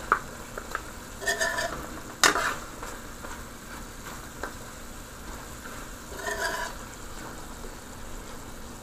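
A metal spoon scraping and clinking against a cooking pot as the finished beef and potato stir fry is dished out, with a loud clatter about two seconds in and two short ringing scrapes. A faint sizzle runs underneath.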